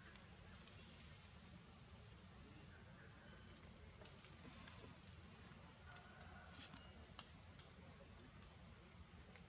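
Faint, steady insect chorus: a continuous high shrill drone at two pitches over a low rumble, with a couple of faint clicks about seven seconds in.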